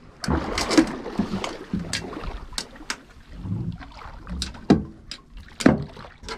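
Irregular sharp knocks and splashing water against the side of an aluminium boat as a halibut hooked by the tail is hauled up to the surface by hand on the line.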